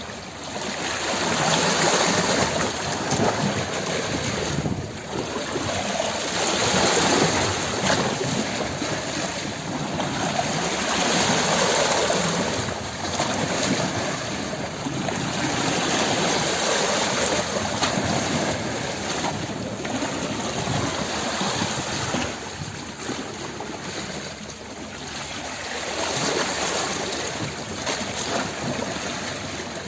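Water splashing: a continuous rushing, splashing noise that swells and eases every few seconds.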